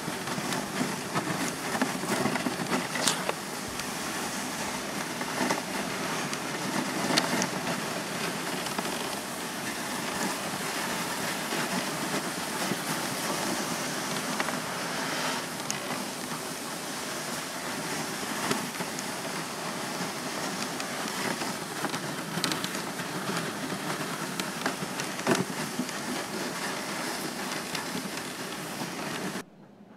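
Dog sled runners gliding over snow, a steady hiss with scattered sharp ticks and scrapes, cutting off suddenly near the end.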